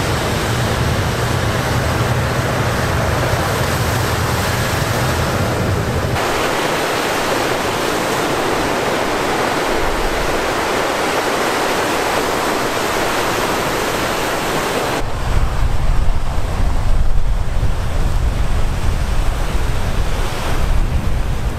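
Lake surf breaking and rushing, with wind on the microphone. The sound changes abruptly about six and again about fifteen seconds in, and from then on a gusty low wind rumble buffets the microphone.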